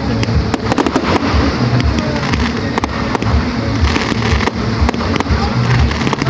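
Fireworks display: an irregular string of sharp bangs and crackles from bursting aerial shells, over a steady low rumble.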